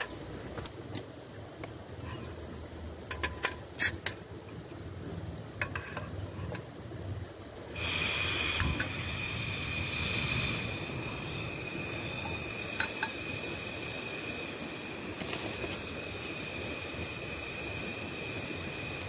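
Outdoor ambience with scattered clicks and knocks over a low rumble. About eight seconds in it changes abruptly to a steady hiss with a steady high-pitched tone running through it.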